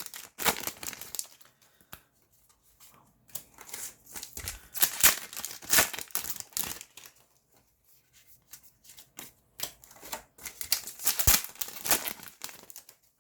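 Foil booster packs of Yu-Gi-Oh! cards being torn open and crinkled by hand, in irregular spells of rustling with short pauses between them, and a sharp click near the end.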